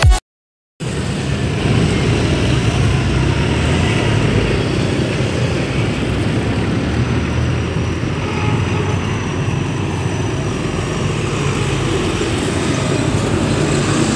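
Steady street traffic noise: cars and motorcycles passing on a busy road, an even rumble of engines and tyres. It starts abruptly after a brief silence.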